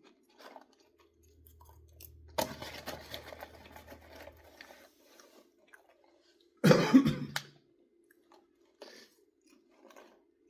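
A person chewing a mouthful of popcorn, with a run of crunching about two and a half seconds in and scattered small crunches after. About six and a half seconds in comes one loud, short burst from the throat, like a cough.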